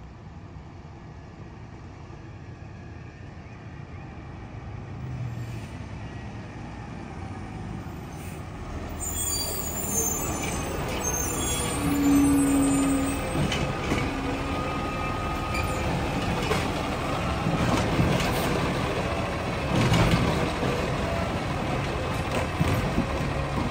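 Ginove Rotopac side-loader garbage truck approaching and pulling up, its diesel engine getting louder about ten seconds in, with hisses typical of its air brakes. Near the end its automated side arm lifts a cart, with knocks.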